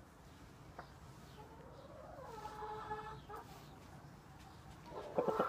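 Chicken calling softly: one drawn-out call about two seconds in, then a quick run of clucks starting near the end.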